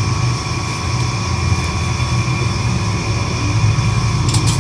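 Steady low machine hum with a few faint steady tones above it, and two quick clicks near the end.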